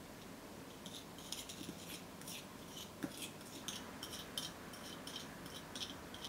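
Small plastic spoon stirring and scraping powdered food dye with a few drops of water against the bottom of a small glass cup: quick, faint, gritty scrapes about three a second, starting about a second in, with a light tap of the spoon on the glass near the middle.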